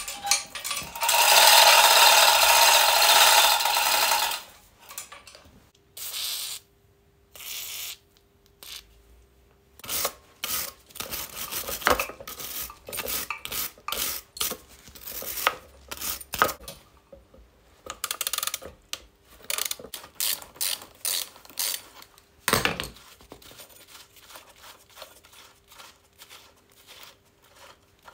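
A loud, steady hiss lasting about three seconds near the start. Then a hand ratchet wrench clicks in uneven runs as the nuts on an old motorcycle's front wheel hub and brake plate are worked.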